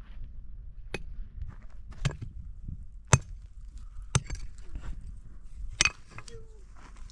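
A series of sharp knocks or strikes, five of them about a second apart, the loudest near the middle.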